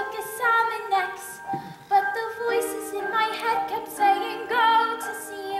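A female voice singing a slow, sustained show-tune line with vibrato, over held chords from the accompaniment.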